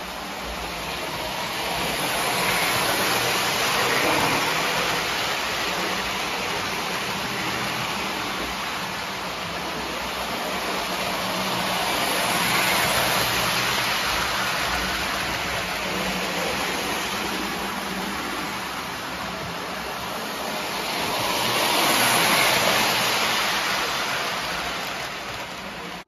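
O scale model train (Lionel) running on its track: a steady rolling rush of wheels and motor that swells three times as the train comes close by.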